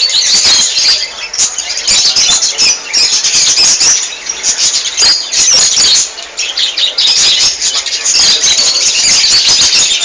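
A flock of budgerigars chattering in an aviary: a dense, continuous mass of high chirps and squeaky calls from many birds at once.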